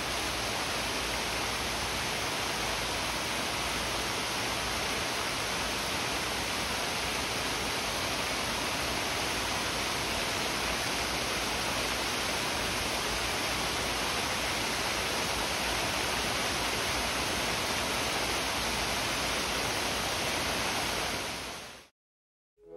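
Heavy rain pouring steadily on garden foliage and paving, an even hiss that stops abruptly about a second before the end.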